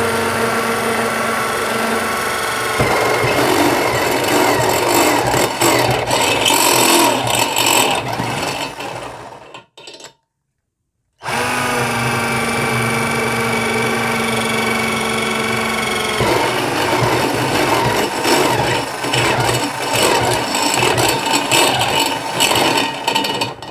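Corded electric drill converted to run on an 18-volt Makita battery, drilling a step (pyramid) bit into thin-walled hollow steel tube. Each run goes from a steady motor whine to a rough grinding as the bit cuts the metal. It stops for about a second near the middle, then starts again for a second run.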